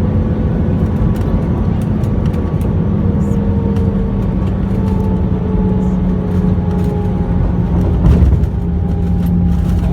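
Airbus A320 cabin noise while landing: jet engine whine over a heavy low rumble, with the engine tones slowly falling in pitch from about halfway through. Cabin rattles and clicks, with a louder thump about eight seconds in.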